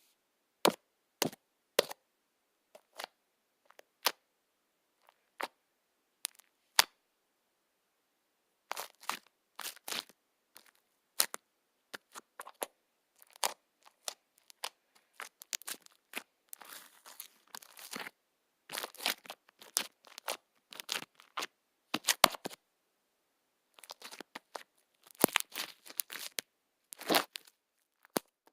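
A doll giving off irregular crackling and crunching clicks: a few scattered snaps at first, then denser crinkly clusters from about a third of the way in.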